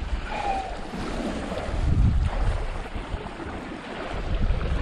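Strong wind buffeting the microphone in gusts, over the wash of small waves against the bank.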